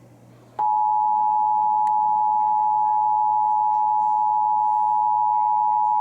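Emergency Alert System two-tone attention signal, the 853 and 960 Hz pair sounded together, starting abruptly about half a second in and holding a loud, steady pitch with a slight pulsing beat. It is the signal that an emergency alert message is about to follow.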